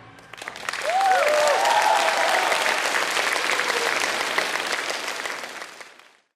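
Audience applauding, with a few short cheers and whoops from the crowd about a second in; the clapping fades near the end.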